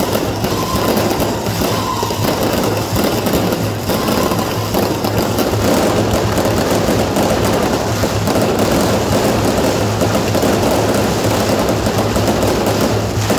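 Firecrackers and fireworks going off in a dense, unbroken crackle, with aerial shells bursting overhead.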